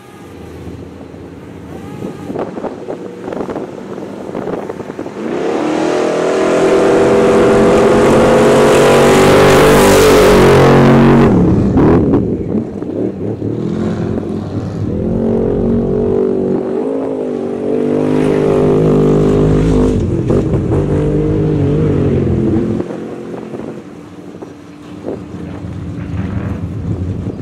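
Off-road race truck's engine revving hard under acceleration, climbing to a loud peak, easing off, then pulling hard again. It drops to a quieter, more distant sound near the end.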